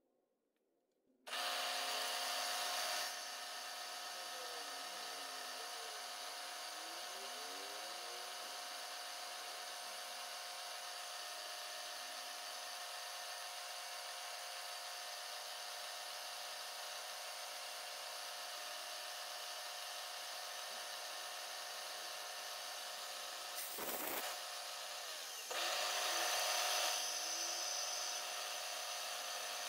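Milling machine spindle starting up about a second in and then running steadily with a high steady whine while a drill bit cuts mounting holes in a small metal cap. A short disturbance comes near the end, after which it runs a little louder for a moment.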